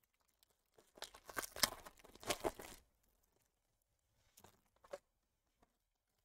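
A trading-card pack wrapper being torn open, a crinkly tearing for about two seconds, followed about a second later by brief rustles of the wrapper and cards being handled.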